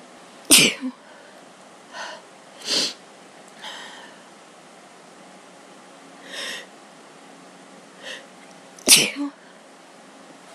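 A person sneezing: two loud sneezes about eight seconds apart, each with a short second burst just after, and several softer short sounds between them. Allergy sneezes put down to a Christmas tree.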